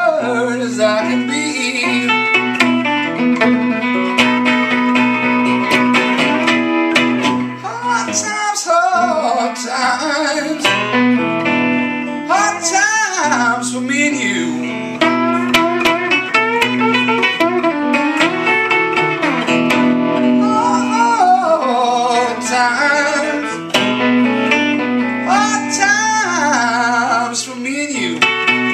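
A man singing a blues song in several phrases, accompanying himself on a hollow-body electric guitar played through an amplifier.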